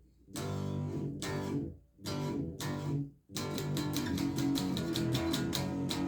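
Electric guitar played through a Behringer Super Fuzz pedal and picked up by a phone some distance from the amplifier. A few fuzzed chords ring out with short breaks between them, then about three seconds in a steady, quick strummed rhythm begins.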